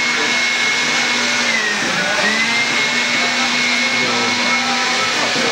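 A small electric appliance motor running steadily with a high whine; its pitch dips briefly about two seconds in and comes back up.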